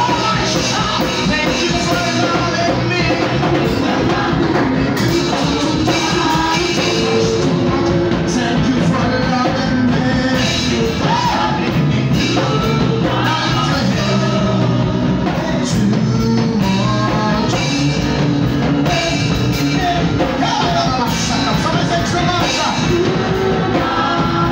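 Loud live worship music: a man singing into a microphone over instrumental accompaniment, the song running on without a break.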